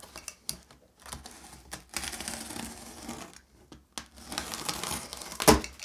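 Packing tape on a cardboard box being slit with a knife blade and the top opened: scattered clicks, then a scratchy rasp of blade, tape and cardboard, and a single sharp knock near the end.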